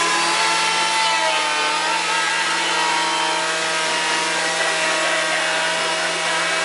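Wood lathe running with a steady motor hum while a turning tool cuts the spinning wood, a continuous scraping hiss with no pauses.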